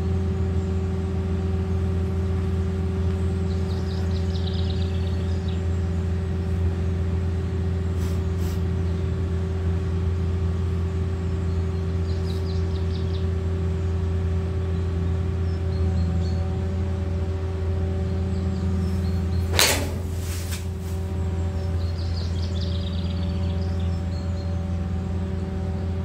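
A steady low machine drone runs throughout. About two-thirds of the way through comes one sharp strike: a golf club hitting the ball off the mat.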